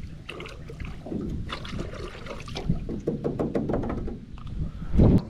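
Water splashing and irregular knocking as a small fish is handled and released, with a loud low thump near the end.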